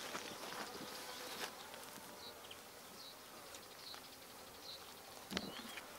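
Honeybees humming faintly around a traditional log hive, with a few soft clicks and one sharper click about five seconds in.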